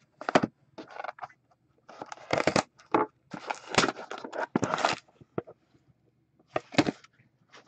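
Plastic shrink-wrap crackling and tearing as it is stripped off a cardboard trading-card box, then the cardboard box being opened, in a series of short crackling bursts.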